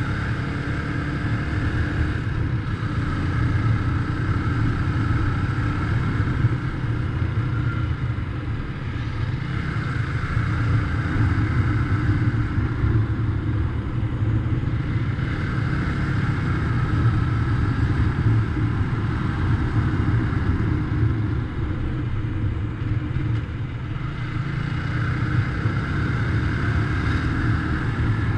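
Motorcycle engine running while under way, a steady low rumble whose note rises and eases several times.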